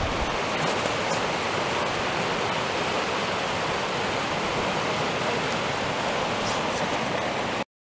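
Rocky mountain stream rushing over stones, a steady, even rush that cuts off abruptly near the end.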